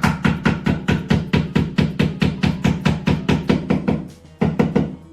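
A hammer rapidly and evenly tapping a fitting into a wooden desk panel, about five blows a second, each blow ringing through the board. The blows fade and stop near the end, after a last short run.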